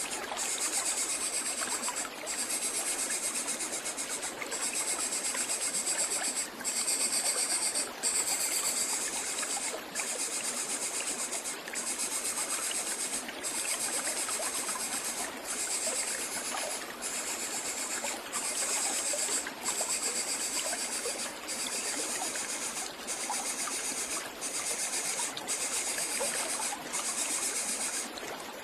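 A high insect buzz in repeated phrases of one to two seconds with short breaks, over a steady rushing noise like running water.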